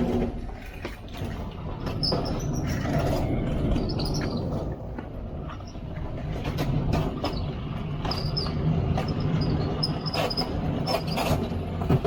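Rumbling and scraping as a heavy stainless steel refrigerator is pushed and slid onto a trailer, with scattered knocks and short high metal squeaks.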